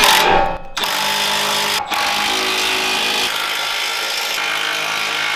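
Cordless right-angle impact wrench running steadily as it drives bumper mounting bolts, with two brief breaks in the first two seconds and a change in tone about halfway through.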